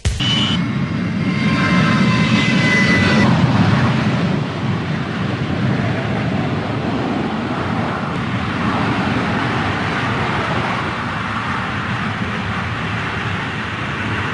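Ilyushin Il-62 jet airliner landing and rolling out on a grass runway: steady jet engine noise, with a high whine that fades about three and a half seconds in.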